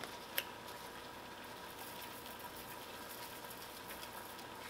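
Faint steady hiss with a faint steady hum. A single light click about half a second in, from the plastic cap of a red pepper flakes shaker being opened.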